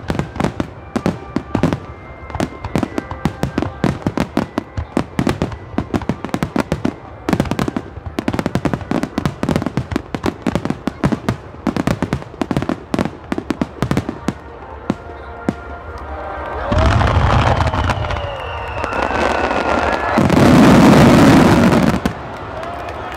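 Fireworks display: a rapid volley of aerial shell bursts, several sharp bangs a second, that about sixteen seconds in thickens into a dense, continuous din of overlapping bursts, loudest for the last couple of seconds before it stops abruptly.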